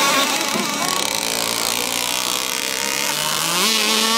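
Two radio-controlled speedboats running fast on open water, their motors whining steadily, one rising in pitch about three seconds in.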